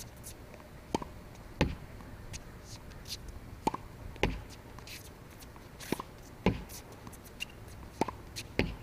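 Tennis ball hit with a racket against a practice backboard, with its bounces on the hard court: a repeating series of sharp hits and thuds, the loudest coming about every two seconds.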